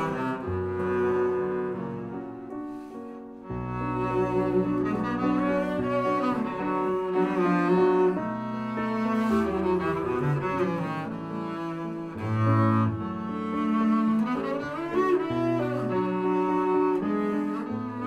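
Double bass played with the bow in a slow solo passage of long, sustained notes, with a short break in the line about three and a half seconds in.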